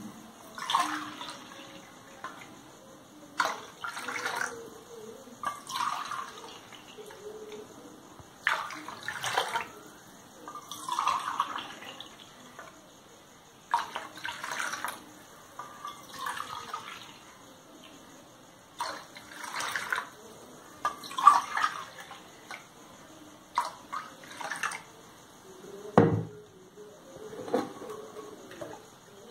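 Coconut water and lemon juice poured repeatedly from a steel tumbler into a steel bowl and back, a splashing pour every two to three seconds, to dissolve the sugar in the juice. A metal clank near the end.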